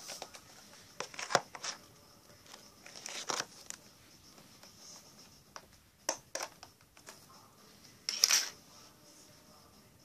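A clear plastic slime tub being handled and opened: several sharp plastic clicks and crackles, the loudest a short crackle about eight seconds in.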